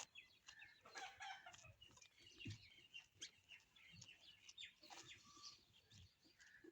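Faint chickens clucking, with small birds chirping and scattered light clicks.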